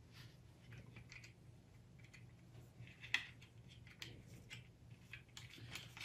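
Faint small metal clicks and taps as a steel U-bolt is worked through the frame of a Concept2 rowing handle, ready for its nylock nuts, over a low steady hum. The sharpest click comes about three seconds in, with a few lighter ticks near the end.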